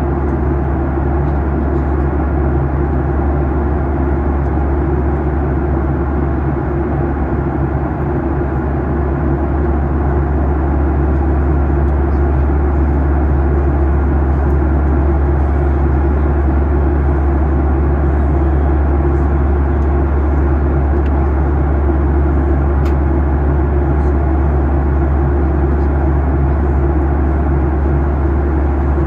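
Steady cabin noise of a Boeing 737-800 in cruise, heard from a window seat: a constant low drone under the rush of air. It grows slightly louder about ten seconds in.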